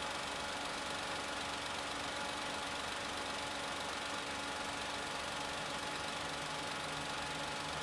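Perodua Ativa's 1.0-litre three-cylinder turbo petrol engine idling steadily, heard close up in the open engine bay.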